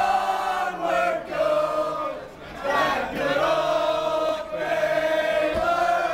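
A crowd of fans chanting together in long held notes, many voices in unison, with a brief drop just past two seconds in.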